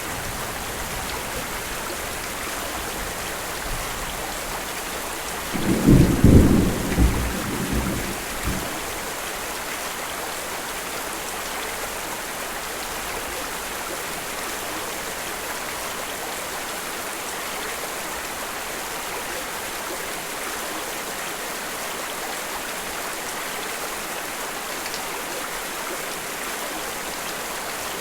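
Steady rain, with one low rumble of thunder about five seconds in that lasts around three seconds.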